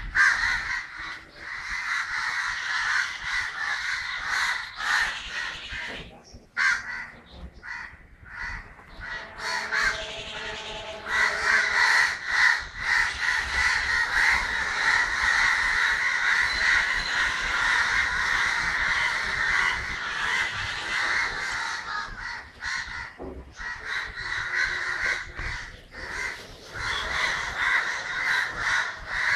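Many crows cawing at once in a dense, continuous din. The calling thins out for a few seconds around the middle, then swells again.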